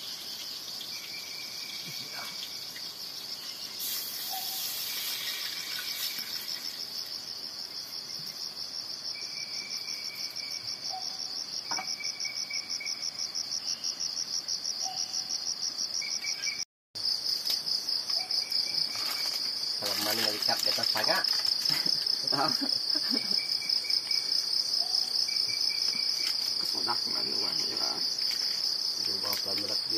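Steady, high, fast-pulsing insect chorus, with scattered knocks and clatter in the second half. It drops out for a moment just past halfway.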